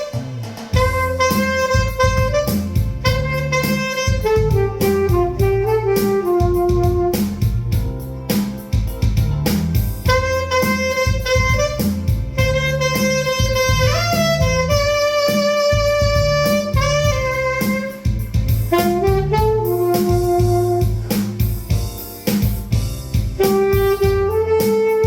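Saxophone playing a slow song melody in long held notes with smooth slides between pitches, over a backing track with bass and a steady beat.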